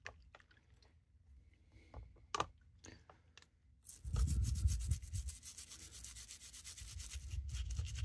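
A few scattered small clicks and taps as a wet Swiss Army knife is handled, then, about four seconds in, a toothbrush scrubbing the wet knife in quick short strokes, loudest when it starts.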